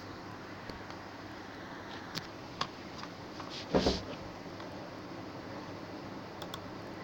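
Steady room noise, like a computer fan, with a few faint clicks and a short louder knock a little before the four-second mark.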